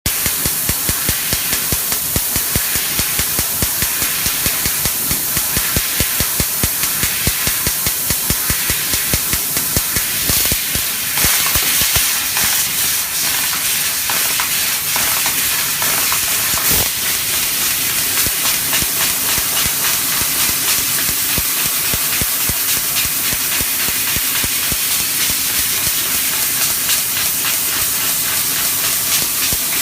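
MARVEL 4 kW CNC fiber laser cutting machine running: a steady, loud hiss of assist gas from the cutting head, with a fast regular pulsing through the first third and a stronger rush of hiss around eleven seconds in.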